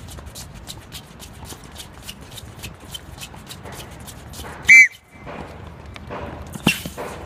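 Rapid, even footfalls of a group of children doing quick foot taps in place on a hard tennis court, about four a second. About four and a half seconds in comes a single short, loud, high-pitched chirp, and near the end sneakers scuff and squeak as the children sprint off.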